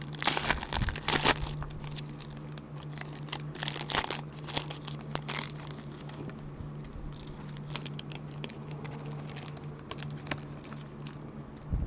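Plastic trading-card packaging crinkling and rustling as hockey cards are unwrapped and handled, a busy run of crackles at the start and again about four seconds in, over a low steady hum.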